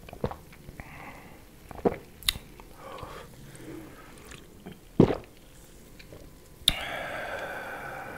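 Close-miked mouth sounds of a person drinking carbonated soda from a plastic bottle: a few sharp clicks and gulps, the loudest about five seconds in. Then, about a second and a half before the end, a long breathy exhale starts suddenly.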